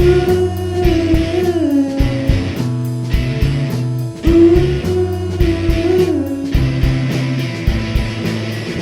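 Psychedelic rock band playing: drums keep a steady beat under bass and guitars, with a long held melodic line that slides down in pitch twice.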